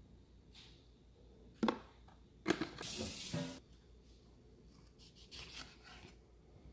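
Chef's knife cutting a lemon in half on a plastic cutting board, with a soft crackly scraping as the blade goes through. Before it come two sharp knocks and about a second of rough rustling noise.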